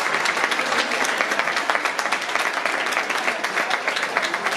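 Audience applauding: many hands clapping in a dense, steady mass.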